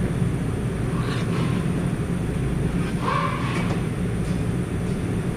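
Steady low rumble of workshop background noise, with a few faint brief higher-pitched sounds about one and three seconds in.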